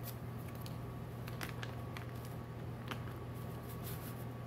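A few faint, irregular crinkles and ticks as a seasoning packet is torn open and shaken out over a bowl of cut okra, over a steady low hum.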